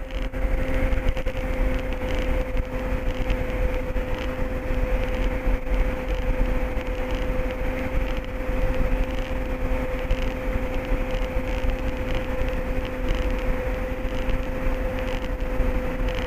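Steady drone of an MD3 Rider ultralight's piston engine and propeller in cruise, heard inside the cockpit, with a constant hum running through it.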